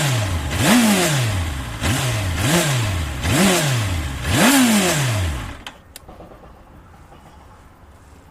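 Suzuki Bandit 650N inline-four engine revved in about six quick throttle blips through its stock exhaust, the original end can that houses the catalytic converter and silencer; the pitch rises and falls with each blip, and the sound stops about five and a half seconds in.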